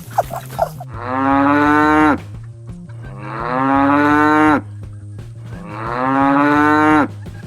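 A cow mooing three times, each moo a long call that rises slightly in pitch.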